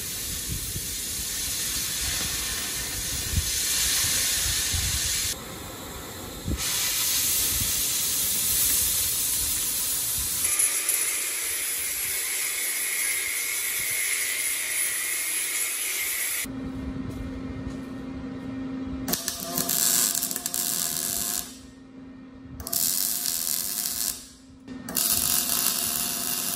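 Angle grinder grinding steel, a steady whine with the hiss of sparks, for a little over half the time. Then a MIG welder is run in about three short crackling bursts with brief pauses between them.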